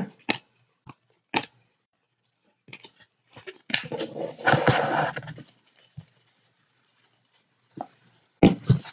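Handling noise at a table: scattered taps and clicks as trading cards and boxes are moved and set down, with a stretch of about a second and a half of rustling midway, and a couple of sharper knocks near the end.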